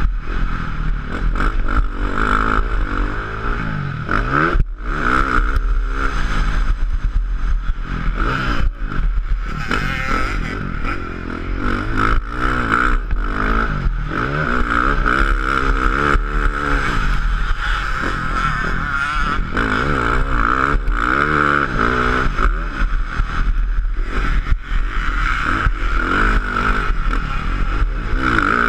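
KTM 450 motocross bike's single-cylinder four-stroke engine at race pace, its pitch rising and falling again and again as the throttle is opened and chopped, with brief drops in level. Steady wind noise rushes over the helmet-mounted microphone.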